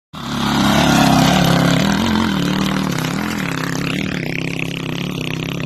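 Dirt bike engine running hard under load up a grassy slope, its pitch dipping and picking back up twice, with a loud rushing noise over it.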